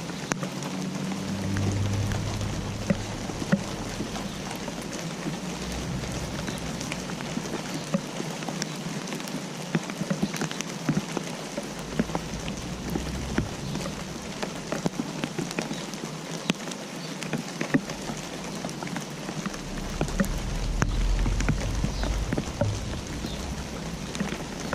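Steady rain falling on a hard surface, with many separate drops pattering and clicking. A low rumble rises and falls beneath it a couple of times.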